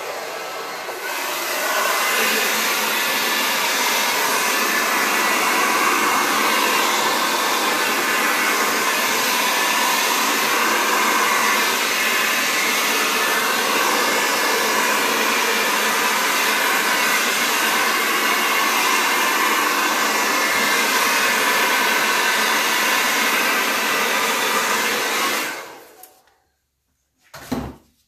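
Hair dryer blowing air across wet acrylic paint, a steady rush that grows louder about a second and a half in and cuts off a couple of seconds before the end. A single short knock follows.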